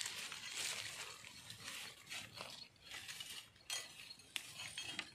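Dry bamboo leaves and undergrowth rustling as someone pushes into a bamboo clump, loudest in the first couple of seconds, followed by a few sharp snaps.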